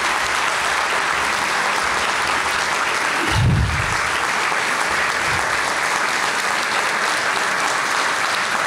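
A large seated audience applauding steadily, with one brief low thump about three and a half seconds in.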